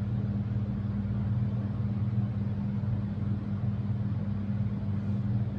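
A steady low hum, even throughout, with nothing else standing out.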